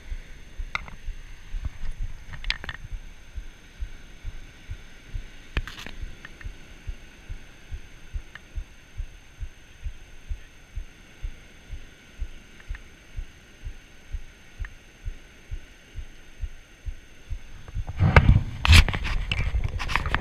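Low muffled thumps, about two to three a second, from a chest-worn action camera jostling against the wearer's body as he works with his hands, with a faint steady hiss behind. Near the end, louder rustling and knocking of handling noise on the camera.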